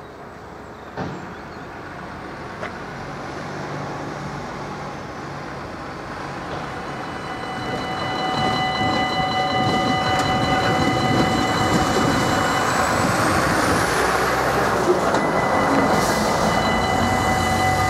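Heavy lorry crossing a level crossing and passing close by, its engine and tyre noise growing louder from about eight seconds in. From then on, the crossing's electronic warning signal sounds as a set of steady high tones over it.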